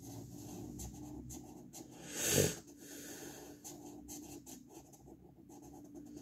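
Wheezy breathing close to the microphone, with one louder sniff or breath about two seconds in, over faint scratching of a colored pencil on paper.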